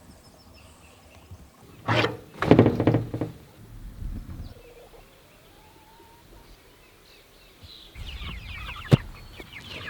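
Chickens clucking in the last two seconds, with a sharp click just before the end. Earlier, about two to three seconds in, a couple of loud thunks.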